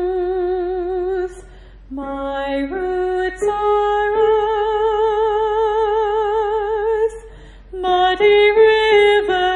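A female soprano voice singing the Soprano 1 line of an SSAA choral piece in long held notes with vibrato. The line breaks briefly about a second in, comes back lower and steps upward to a long sustained note, then breaks again near the end.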